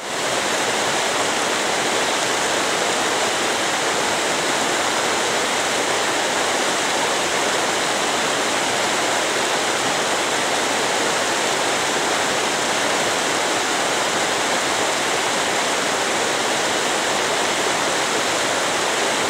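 Shallow river water running over rocks in a riffle, making a steady rush of water.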